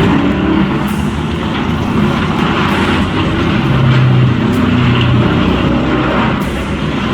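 Heavy machinery engine running steadily, its note shifting up and down with the load.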